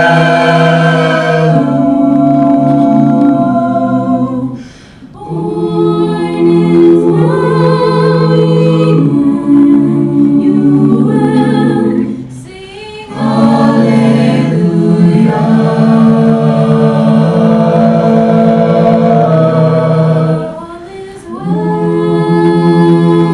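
Mixed-voice a cappella group singing held chords in close harmony into microphones, with no instruments. The phrases break off briefly three times, about 5, 12 and 21 seconds in.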